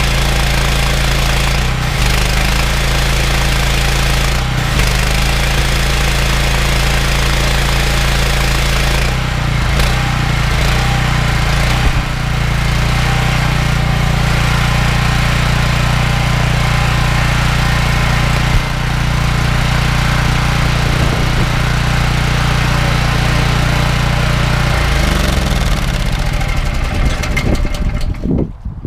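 Honda GX390 single-cylinder petrol engine driving a belt-driven pressure washer pump, running steadily. Near the end the engine slows and stops as it is shut off.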